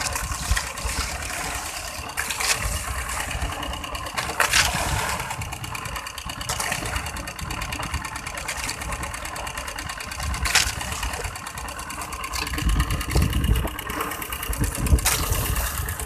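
Small outrigger fishing boat's engine running steadily while under way, a fast even putter, with wind buffeting the microphone and a few short rushes of water or wind.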